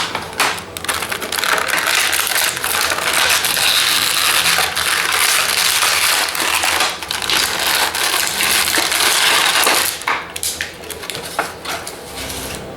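Action-figure packaging crinkling and crackling loudly as it is handled and pulled apart, for about ten seconds, then a few scattered clicks and rustles near the end.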